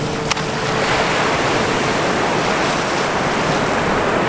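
Ocean surf washing up the beach: a loud, even rush of water that builds about a second in and holds steady, with a single short knock just before it.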